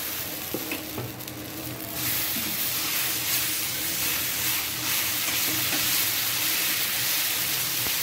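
Appam batter of ground rice and urad dal sizzling on a hot dosa griddle as it is ladled on and spread in a spiral; the sizzle grows louder about two seconds in and then holds steady.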